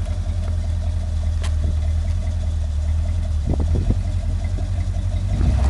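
Off-road vehicle's engine running with a steady low hum while crawling over rocks.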